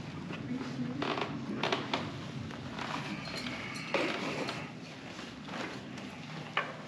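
Shoes scuffing and scraping on sandstone and sand: a few irregular scrapes as people step and climb down.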